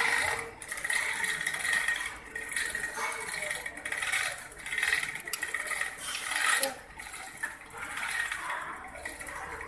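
Metal hand tools clicking and scraping on an engine's rocker arm: a hex key holding the valve adjusting screw while a ring spanner turns its locknut, in irregular short bursts. This is valve clearance being set during a tune-up.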